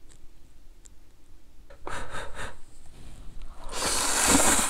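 A person slurping instant noodles. There is a brief noise about two seconds in, then a long, loud slurp near the end.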